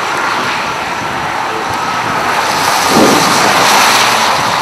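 Steady rush of wind and highway traffic noise, with a car passing close by about three seconds in.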